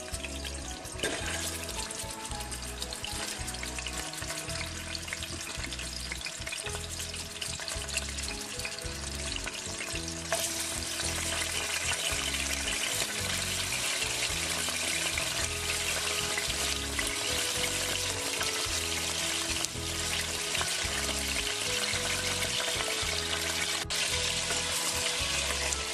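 Pieces of turkey meat sizzling as they fry in hot oil in a saucepan, a steady hiss that grows louder about ten seconds in. Background music plays underneath.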